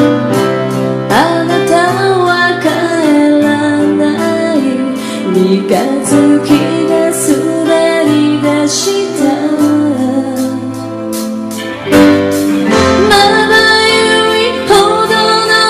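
A woman singing a pop song live, with guitar and bass accompaniment and a steady beat.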